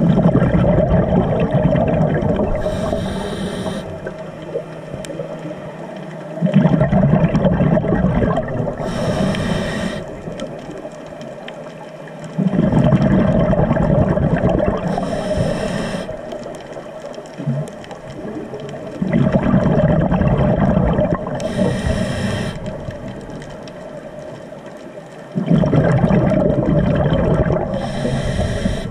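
Scuba diver breathing through a regulator underwater: a loud gush of exhaled bubbles that fades over a few seconds, then a short hiss of inhalation through the regulator. The cycle repeats about every six seconds, five breaths in all.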